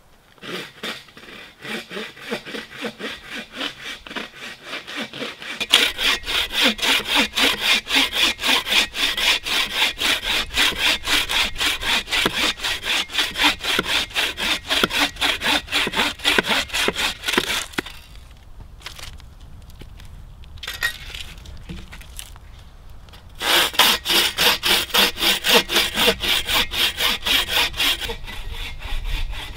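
Folding hand saw cutting through a dead, barked branch in quick, even back-and-forth strokes. The strokes are fainter for the first few seconds, stop for about five seconds past the middle, then start again.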